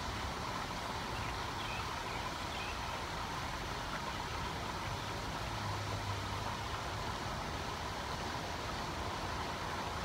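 Steady outdoor street ambience: a fountain splashing and traffic noise, with a brief low hum about six seconds in.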